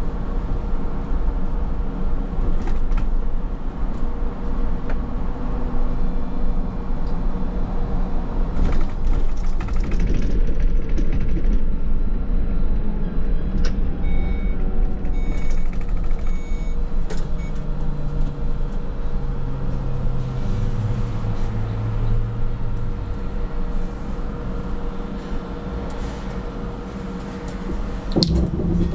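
Škoda 27Tr trolleybus heard from inside the vehicle: a steady low rumble with a constant electric hum. Short repeated beeps sound a little past the middle. Later a low motor tone steps down in pitch, and there is a brief clatter near the end.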